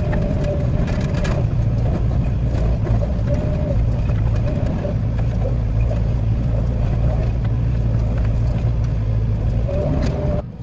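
Hitachi 14-tonne excavator running under load as it digs, a steady low diesel hum with a mid-pitched whine that comes and goes. The sound briefly drops out near the end.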